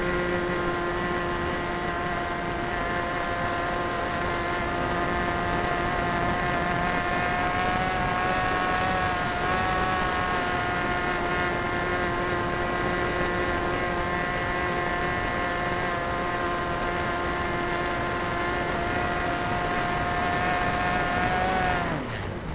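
Super Tigre 90 two-stroke glow engine of an RC plane running steadily at a high, even pitch over wind rush. Near the end its pitch drops sharply and it stops, leaving only the wind: the engine quitting as the plane runs out of fuel.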